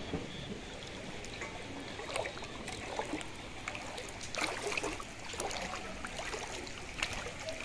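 Footsteps wading through floodwater: water sloshing and splashing irregularly around the legs with each step.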